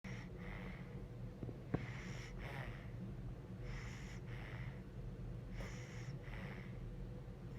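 Baby snoring softly in sleep: noisy breaths in and out, about one breath cycle every two seconds. A steady low hum lies underneath, and there is a brief click just before two seconds in.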